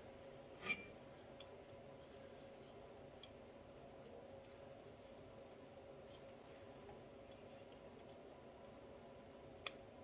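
Near silence with a few faint light clicks and taps as the finned cylinder is worked down over the new piston and rings of the Suzuki LT80 engine. The loudest click comes about a second in, and another sharp one near the end.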